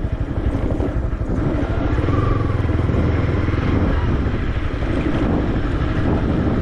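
Honda CB300 single-cylinder motorcycle engine running under way on a rough dirt trail, with a steady low rumble that grows louder about a second and a half in.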